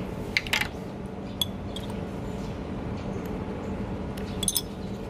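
Cutlery and dishes clinking: a few short, light knocks, some with a brief metallic ring, in a cluster near the start and again near the end, over a steady low background hum.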